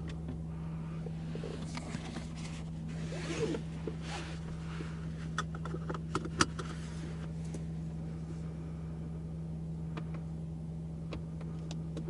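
Cabin of a BMW i8 plug-in hybrid sports car on the move: a steady low drone that holds one pitch. Over it come scraping and rustling noises and a sharp click a little past the middle, the loudest moment.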